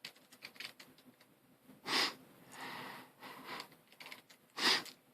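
A person sniffing twice through the nose, sharply, about two seconds in and again near the end, with a softer breath between them. Faint small clicks of plastic puzzle-cube pieces being handled run under the sniffs.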